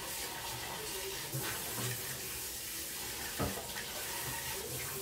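A steady rushing hiss of kitchen noise with a few light knocks and clinks, the loudest about three and a half seconds in.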